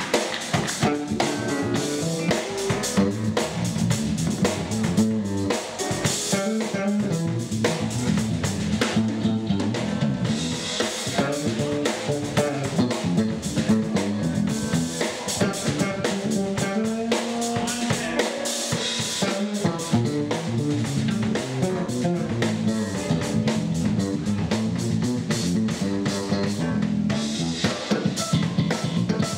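Live band playing instrumental rock: a drum kit keeps a driving beat on bass drum and snare under electric bass guitars and electric guitar.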